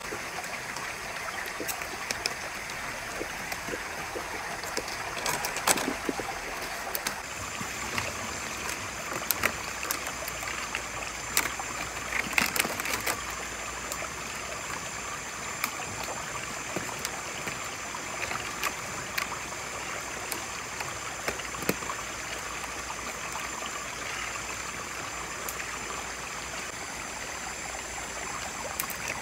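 Steady running water, with scattered sharp clicks and snaps over it. A thin, high, steady tone joins in about seven seconds in.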